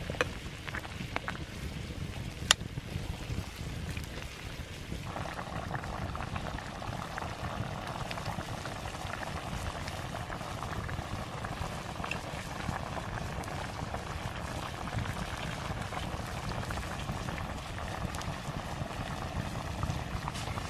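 A kadai of curry bubbling steadily at the boil over a wood fire, a fizzing, popping hiss; the bubbling grows fuller about five seconds in. A single sharp click sounds about two and a half seconds in.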